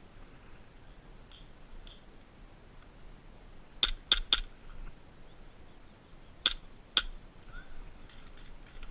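Airsoft replica firing single shots as sharp clicks: three quick shots about four seconds in, then two more about half a second apart near the end.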